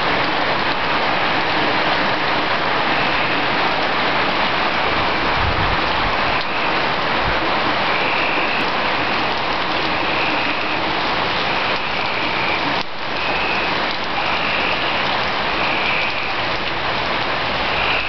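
Rain falling steadily onto hard surfaces, a dense even hiss. A faint high-pitched sound comes and goes above it from a few seconds in.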